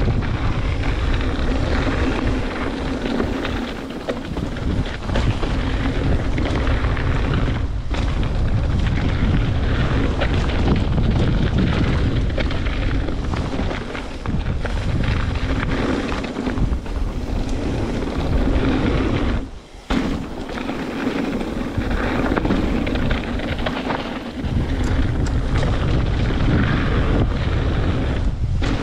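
Wind buffeting the microphone and tyres rumbling over rough trail as a Trek Remedy 8 full-suspension mountain bike descends at speed, with frequent rattles and knocks from the bike over roots and rocks. The noise drops away for a moment about two-thirds of the way through.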